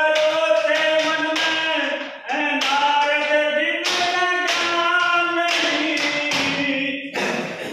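A man singing a ragni, a Haryanvi folk song, in long held notes, with steady rhythmic taps keeping the beat. The singing trails off near the end.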